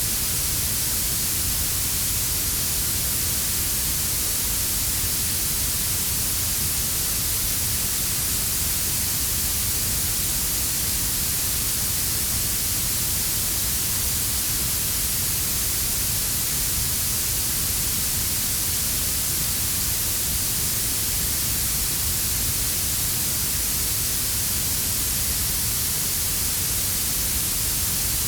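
Steady synthetic blue noise, a bright hiss strongest in the highest pitches, blended with a quieter brown-noise rumble underneath. It holds unchanging throughout.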